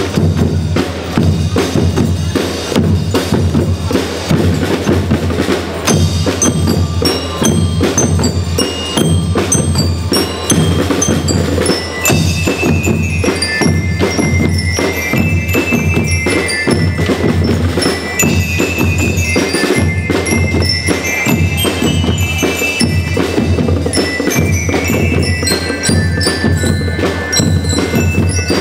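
A school marching percussion band playing: snare and bass drums keep a steady beat under a melody on marching bell lyres (glockenspiels), and the ringing bell-lyre tune stands out more clearly from about twelve seconds in.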